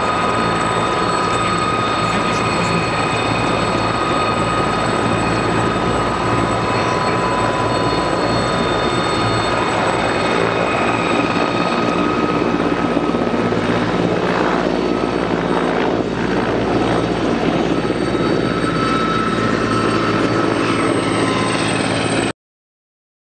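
Mil Mi-17 twin-turbine helicopter running at close range, the steady high whine of its turbine engines over the beat of the main rotor as it lifts off and flies low. The sound cuts off suddenly near the end.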